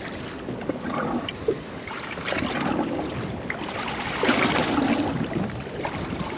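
Water lapping and slapping against the hull of a small rigid inflatable boat at sea, with wind. It gets louder about two and a half seconds in and again about four seconds in.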